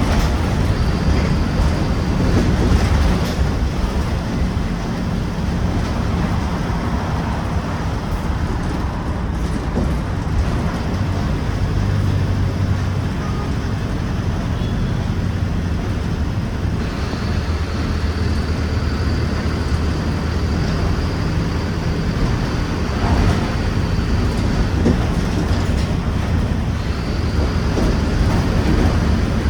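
Diesel engine of a Mercedes-Benz OF-1721 bus running as the bus drives, a steady low drone whose pitch shifts a little at times, with a faint high whistle in the second half.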